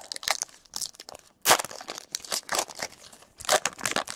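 Foil wrapper of a Panini Chronicles Baseball card pack being torn open and crinkled by hand, in irregular sharp crackles. The loudest bursts come about a second and a half in and again near the end.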